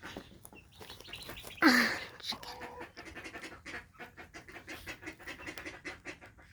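A chicken sneezing once, a sudden sharp burst about a second and a half in, followed by a run of quick, soft, rhythmic sounds, about five a second.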